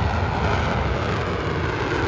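F-22 Raptor's twin Pratt & Whitney F119 jet engines roaring: a loud, steady rush of noise over a deep rumble.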